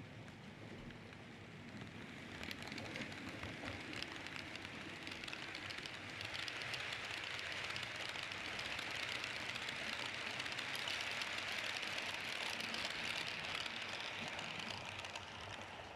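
H0-scale model train running on the layout's track: a steady rolling hiss that grows louder from about two seconds in and falls away near the end.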